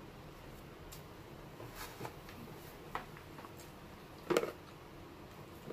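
Soft eating noises at a table: a few faint taps and mouth sounds from people eating rice and fish with their hands, with one louder short clink or smack about four seconds in.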